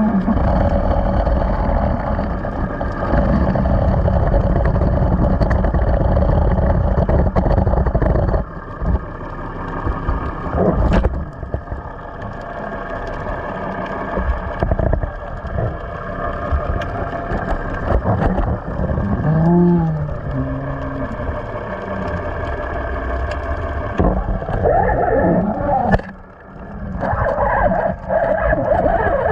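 A fishing boat's engine running steadily with a low rumble and a constant hum, dropping away briefly twice.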